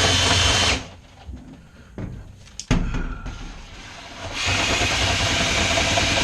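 Power drill spinning a rotary dryer-vent cleaning brush inside the vent pipe as it is pulled out. The drill stops about a second in, a few sharp knocks sound, and it starts spinning again after about four and a half seconds.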